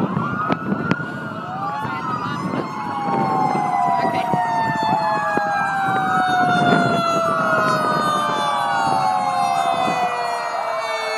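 Several emergency vehicle sirens from a fire truck and its police escort sounding together. Their pitches rise and fall in overlapping sweeps every few seconds, while one tone slides slowly downward.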